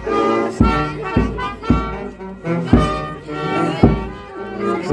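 A brass band playing a march, with held brass chords over a steady low beat about twice a second.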